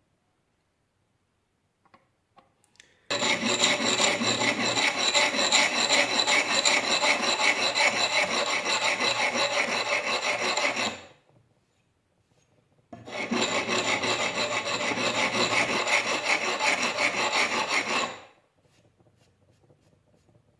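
A file rasping on the steel of a Hultafors axe head in quick, even strokes, in two long bouts with a short pause between. This is the modification that lets the axe scrape sparks from a ferrorod.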